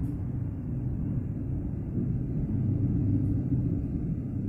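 Low, steady rumble of a passenger train's coach rolling slowly along a station platform, heard from inside the coach.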